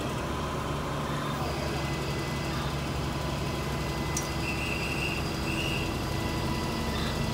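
Heavy machinery's engine running steadily, with a thin steady whine above it and two short high beeps about four and a half and five and a half seconds in.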